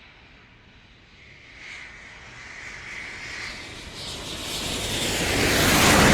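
Jet aircraft approaching in a display pass, its roar building steadily louder over the last few seconds.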